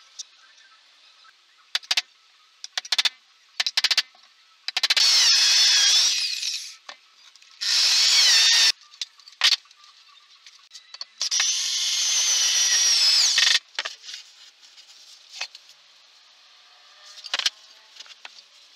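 Handheld power drill whirring into MDF in three bursts of one to two and a half seconds, its pitch rising and falling with the trigger, between short knocks and clicks of MDF pieces being handled.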